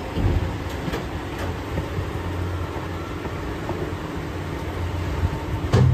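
Chopped fruit tipped from a plastic tub into a plastic basin, with a thump just after the start and a few light clicks, over a steady low rumble. A louder thud comes near the end.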